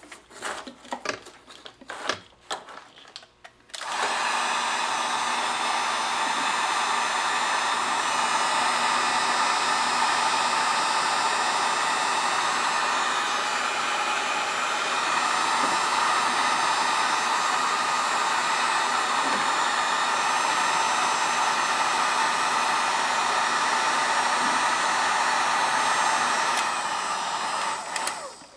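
A few light handling clicks, then a hot-air blower switches on about four seconds in and runs steadily, shrinking heat-shrink tubing over soldered wire joints, before it shuts off near the end.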